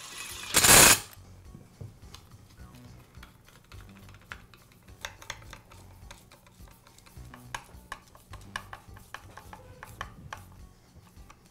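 A cordless power screwdriver runs briefly, about half a second, driving a screw into the saw's aluminium blade guard. After that come light, scattered clicks and taps of a hand screwdriver working on the saw's metal housing.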